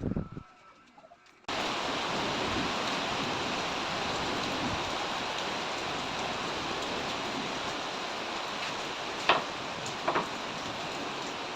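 A steady hiss that starts suddenly about a second and a half in and holds evenly, with two short knocks near the end.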